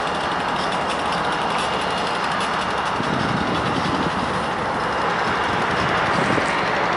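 Diesel locomotive engines running in a steady mechanical din.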